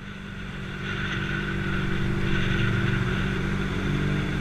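A motor vehicle engine running steadily with road noise, coming up in level over the first second and then holding even.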